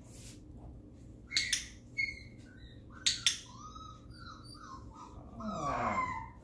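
Young Cavalier King Charles Spaniel whining in short, high squeaky cries, ending in a longer falling whine near the end. Two sharp double clicks come from a training clicker, about a second and a half and three seconds in.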